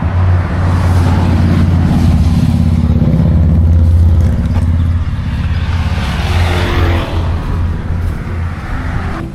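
Motor vehicle on a road running close by, a steady low engine hum loudest in the first half, with a falling pitch sweep about two-thirds of the way through as it passes.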